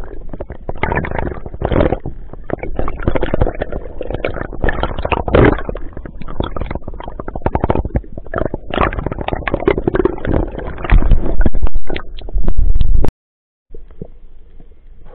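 Underwater noise picked up by a dive camera: a dense, rough crackle and rumble from water and handling close to the housing. It grows loudest and distorts near the end, cuts out for a moment, then comes back much quieter.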